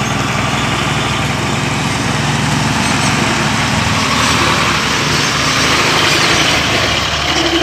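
Bedford truck's engine running with a steady low pulsing beat as the truck drives up and passes close by, getting louder as it comes alongside.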